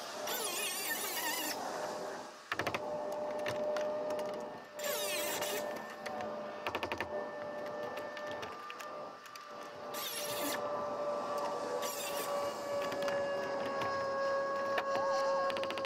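Asphalt shingles being stripped and cut away from a barn roof: a few short, harsh, rattling bursts, the first lasting about a second and the others shorter. Under them runs a steady high-pitched hum that sinks very slightly in pitch.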